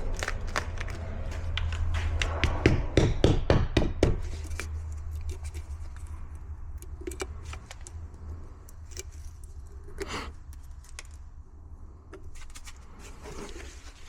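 Rapid clicking and rattling of small hard items being handled, densest and loudest about two and a half to four seconds in, then sparser clicks and scrapes with a brief louder rustle about ten seconds in, over a low steady hum.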